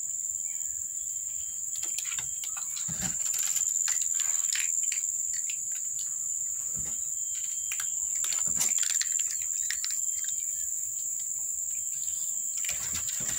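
A steady high-pitched insect drone running throughout, with scattered short crunches and clicks from a cat chewing dry kibble.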